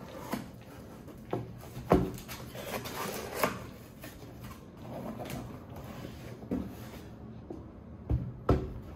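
Cardboard product boxes and packaging being handled on a table: rustling and scraping, with a few sharp knocks, the loudest about two seconds in and two more near the end.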